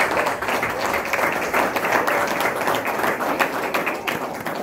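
Audience applauding, tapering off near the end.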